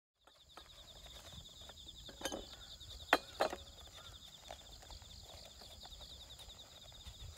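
Hands handling pour-over coffee gear on a wooden table: a paper filter and dripper being set up, with a few sharp knocks and clicks, the loudest two about three seconds in. A steady high trill runs underneath.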